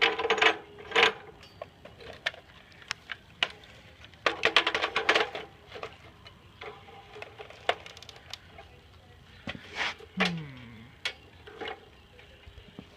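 Scattered knocks and clicks of plastic Nerf gun parts being handled and set down, with a short clattering burst about four seconds in and a brief falling hum near ten seconds.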